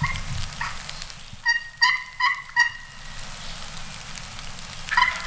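Turkey yelping: a run of four loud, evenly spaced yelps about a second and a half in, with shorter single notes at the start and near the end.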